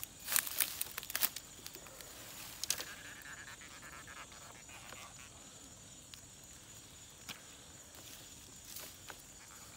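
Rustling grass and a few sharp clicks and knocks as a caught fish is handled on its line over a plastic basket, mostly in the first second and a half. After that, a low steady outdoor hiss with a faint high insect drone.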